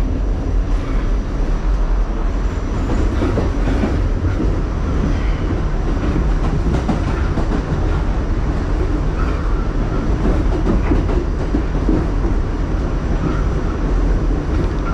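New York City subway car running at speed, heard from inside the car: a steady low rumble with the rattle of the wheels on the track and of the car body.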